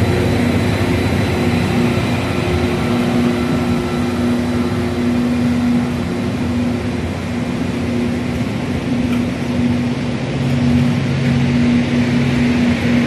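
Network Rail rail grinding train's diesel engines running as the train pulls slowly past: a loud, steady drone with a strong held low tone, swelling slightly near the end.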